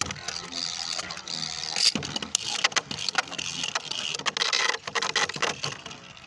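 Two Beyblade spinning tops spinning in a plastic stadium, grinding across its floor with many sharp clicks as they strike each other and the stadium walls.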